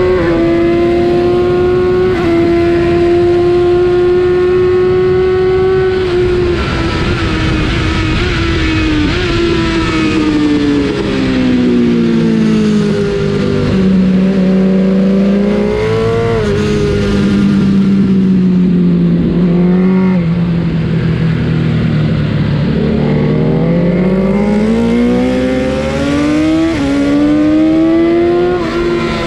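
BMW S1000 RR inline-four superbike engine at racing speed. It holds high revs, drops in steps through several downshifts with short throttle blips into a slow section, then pulls hard again, rising through the gears with an upshift near the end.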